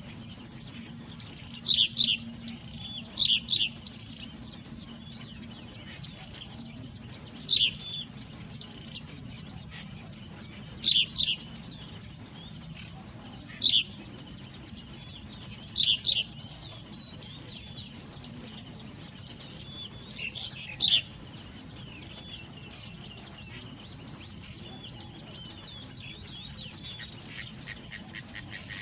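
A bird calling with short, sharp chirps, single or in quick pairs, every few seconds, then fainter twittering near the end.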